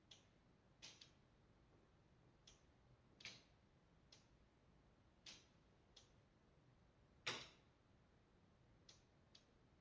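Flat roof giving off about a dozen sharp ticks and cracks at irregular intervals against a near-silent background. The loudest crack comes about seven seconds in.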